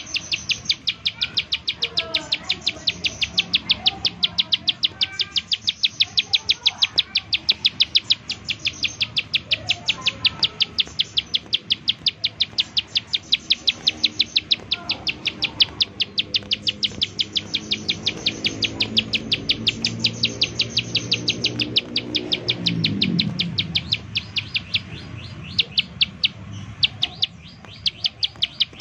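Plain prinia (ciblek sawah) giving its rapid repeated 'nembak' call: a fast, even train of sharp high notes, about four a second, broken by a few short pauses near the end. A low rumble swells and fades about two-thirds of the way through.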